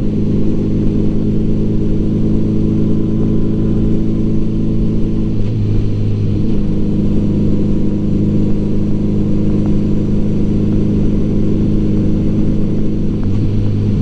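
1984 Honda Gold Wing Aspencade's flat-four engine running steadily under way, its note changing briefly about five seconds in and again near the end.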